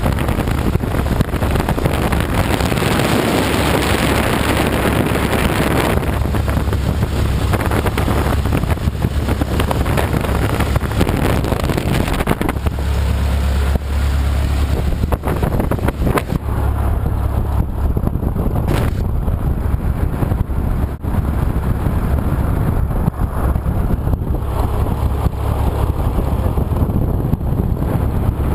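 Lycoming O-290 air-cooled flat-four aero engine running on the ground in a Stolp SA900 V-Star biplane, held below about 2000 RPM, with propeller wash buffeting the microphone. It is harsher and louder for the first six seconds and eases to a duller, lower sound from about sixteen seconds in.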